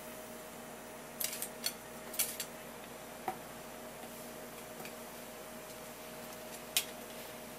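A few light clicks and taps on a metal cooking pot as a fish head simmering in broth is handled: a cluster about a second in, another around two seconds in, and a single sharp click near the end, over a steady low hum.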